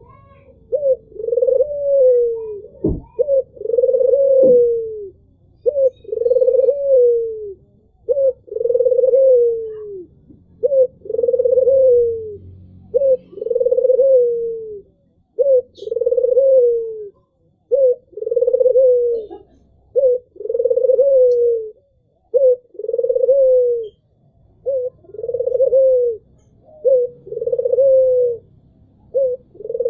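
A Barbary dove (puter) cooing over and over: each call is a short note followed by a longer coo that falls slightly in pitch, repeated about every two seconds.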